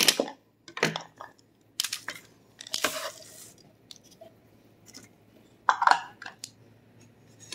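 Finely chopped toasted pecans tipped and tapped out of a plastic hand chopper's bowl onto a parchment-lined baking sheet, in a few short separate spells of rustling and clatter.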